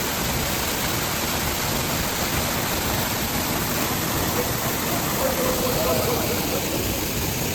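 Waterfall: a steady, loud rush of falling water. Faint voices are just audible about five seconds in.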